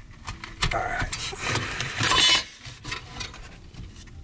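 Irregular clattering and scraping of a metal recessed can light housing and its junction box being handled, with the loudest rattle about two seconds in.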